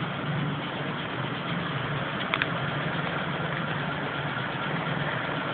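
Steady low mechanical hum under an even hiss, with one brief click about two and a half seconds in.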